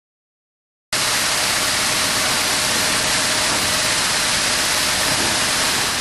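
Loud, steady hiss that cuts in abruptly about a second in and drops away near the end, with a faint steady tone beneath it.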